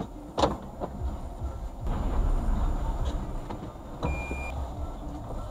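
A car door shutting with one sharp thump about half a second in, then the low rumble of the car cabin; a short electronic beep sounds about four seconds in.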